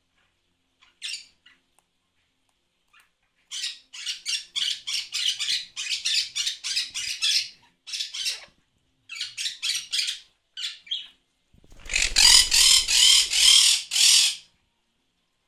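Baby lop rabbits crunching on a piece of raw swede held close to them, rapid bites at about five a second in runs broken by short pauses. The loudest run comes near the end, with a low rumble under it.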